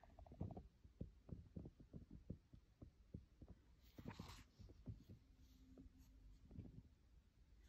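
Faint handling noise: soft low thumps, about two or three a second, as a shrink-wrapped CD case is held and turned, with a brief crinkle of the cellophane wrap about four seconds in.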